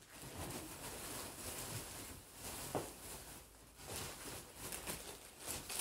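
Plastic bags and packaging rustling and crinkling irregularly as things are handled and unpacked.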